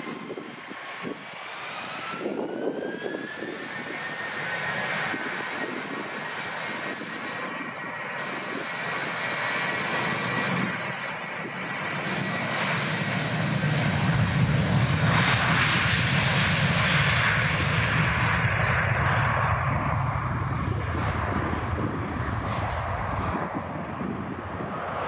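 Airbus A321 jet engines: a whine rising in pitch a couple of seconds in as they spool up, then loud low engine noise of takeoff thrust building from about halfway and staying strong to the end.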